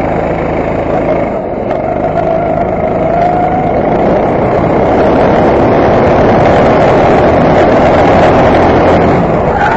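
Go-kart engine heard on board, revving up out of a corner and held at high revs down the straight; its pitch climbs in the first few seconds and it gets louder about halfway through.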